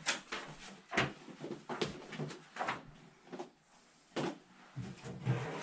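Slow footsteps across an office floor, a little over one step a second, with small knocks and rustles in between.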